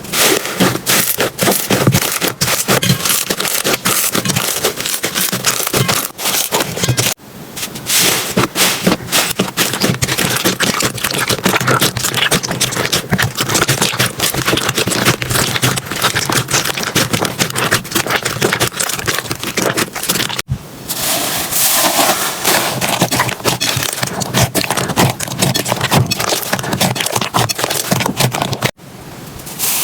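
Slime being squeezed and kneaded by hand: a dense run of crackles and small pops, with brief gaps about 7, 20 and 29 seconds in.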